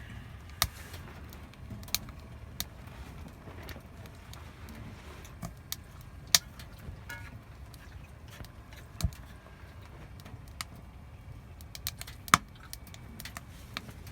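Burning firewood crackling: irregular sharp pops and snaps over a low steady rumble. The loudest pops come about six seconds in and near the end.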